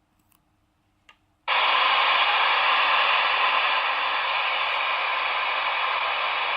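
Two-way VHF radio receiver hissing with steady static through its speaker. The static cuts in suddenly about a second and a half in, after a faint click. The squelch has opened on a distant station whose transmission is too weak to be made out through a telescopic antenna.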